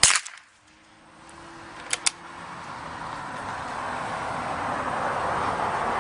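A .22-calibre rifle shot at the start, one sharp crack. About two seconds later come two quick clicks, then a rushing noise swells up over the last few seconds.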